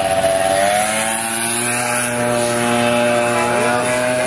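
Small motor scooter engine passing close by, its note dropping in pitch about a second in as it goes past, then running at a steady pitch.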